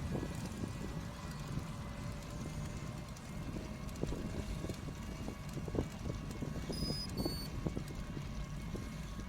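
Wind buffeting the microphone and tyre rumble from a tandem bicycle rolling along a bike path, with scattered small rattles. Two short high electronic beeps sound about seven seconds in.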